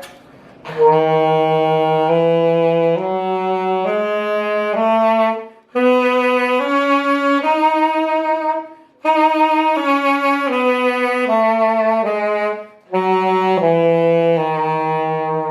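Saxophone playing a Locrian mode scale: steady held notes stepping up one at a time, then stepping back down, with three short breaks along the way.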